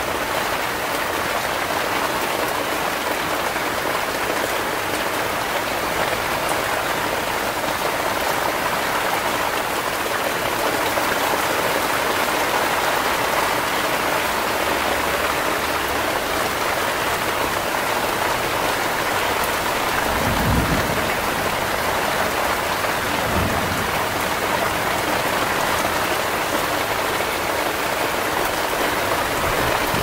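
Heavy rain falling steadily in a thunderstorm, with two brief low rumbles about two-thirds of the way through.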